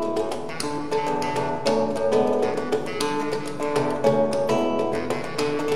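Acoustic guitar plucking a quick run of changing notes in a small live ensemble, with sharp taps on a hand drum alongside.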